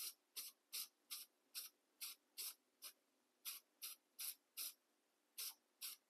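Rust-Oleum clear matte aerosol can spraying in a string of short hisses, about two or three a second with a couple of brief pauses, laying down a light clear coat.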